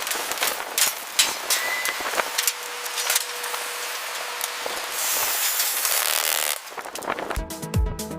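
Restoration work sounds: a run of knocks and clicks, then a steady hiss like spraying for about a second and a half. Near the end, electronic dance music with a thumping beat comes in.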